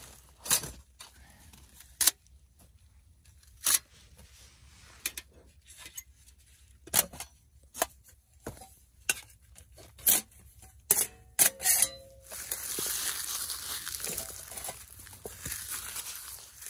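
A series of short, sharp scraping strokes and clicks: a knife shaving curls off a feather-stick, then the metal panels of a titanium folding stove clicking together, one with a brief ring. About twelve seconds in this gives way to steady crinkling as dry beech leaves are crumpled for tinder.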